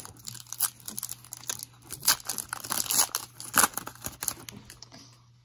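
Foil wrapper of a 2008 SP Rookie Edition football card pack crinkling and tearing as it is opened by hand, in irregular crackles that die away near the end.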